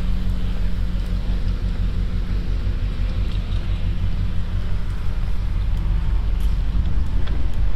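A nearby engine running steadily: a low, even hum.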